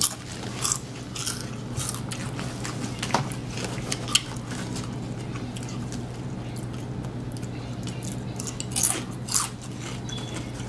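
Crunchy chips and a sub sandwich being bitten and chewed, with several sharp crunches, most in the first half and two near the end, over a steady low hum.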